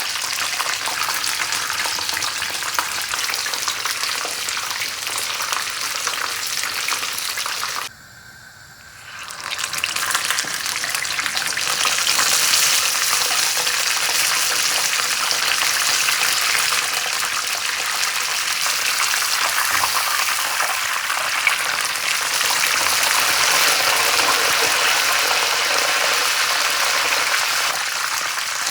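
Coated chicken pieces deep-frying in oil, a steady sizzle. It cuts out briefly about eight seconds in, then comes back a little louder.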